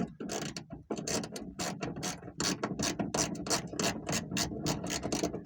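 Hand ratchet wrench with a 10 mm socket clicking rapidly, about five clicks a second, as it backs out a trunk latch bolt.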